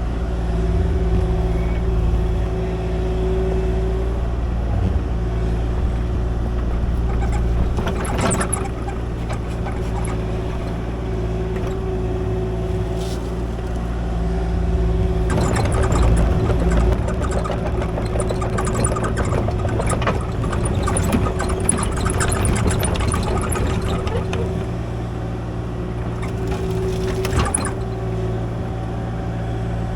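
Kubota KX040 mini excavator's diesel engine running steadily, with bursts of scraping and clatter as the bucket works the dirt: once about eight seconds in, through a longer stretch in the middle, and again near the end.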